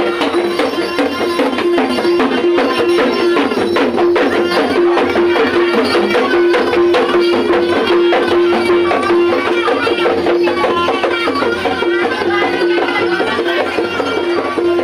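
Traditional Javanese music with quick percussion strikes, over a single note held steadily throughout.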